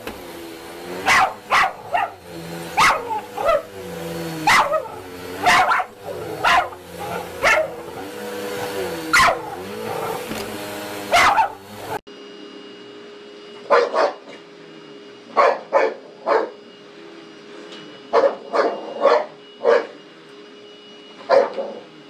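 Dogs barking sharply and repeatedly, about once a second, at a running upright vacuum cleaner whose motor hums steadily underneath. About halfway through, the background hum changes abruptly and a second dog, a boxer, barks at another upright vacuum.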